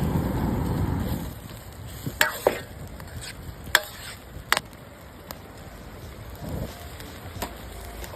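Food sizzling in a pan, loudest for about the first second, then quieter, with a few sharp clicks and taps between about two and four and a half seconds in.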